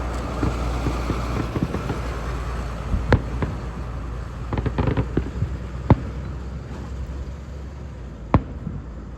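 Aerial fireworks bursting: a run of sharp bangs over a low rumble, with a quick cluster of cracks about halfway through and a crackling hiss in the first couple of seconds. The loudest bang comes about six seconds in.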